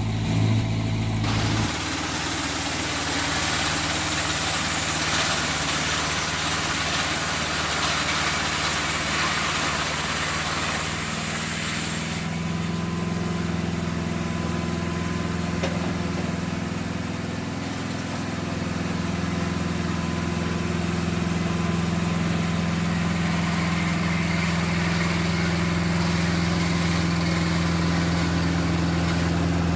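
An engine running steadily, its note shifting about two seconds in and again around twelve seconds in.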